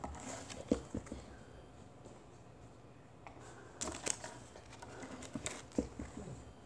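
Rustling and light knocks of trading cards and paper being picked up and moved on a tabletop by hand. They come in two bunches, one in the first second and another from about four to six seconds in.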